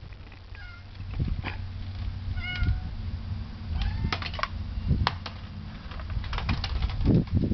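Domestic cat giving two or three short meows in the first few seconds, followed by scattered light clicks and taps over a steady low rumble, with a couple of dull thumps near the end.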